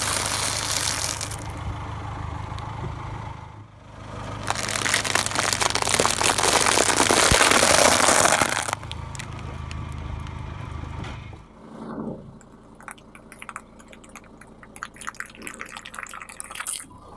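A car tyre rolling over food and crushing it: potato chips crackling, then a bag of dry bow-tie pasta crunching loudly from about four seconds in, then cherries squashing with scattered sharp pops and clicks in the second half. A low engine idle hums under the first part.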